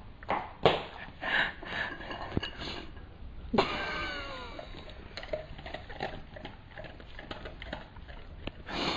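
A dog whining once, a drawn-out call that falls in pitch about three and a half seconds in, among scattered light knocks and clicks.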